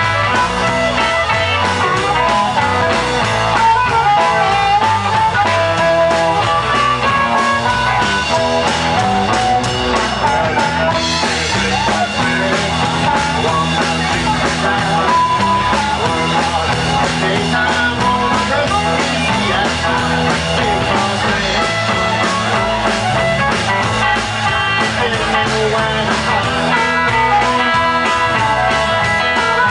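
Live blues band playing an instrumental passage: a harmonica, cupped in the hands against a microphone, plays lead over electric guitars and drums.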